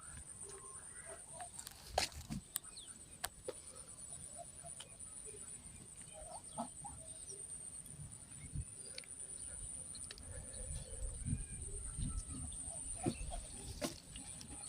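Domestic fowl calling faintly in short, scattered clucks, with a few sharp clicks, over a steady high-pitched whine.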